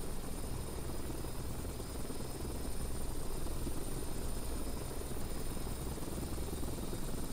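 Steady drone of a helicopter's engine and rotor, with a thin high whine running over it.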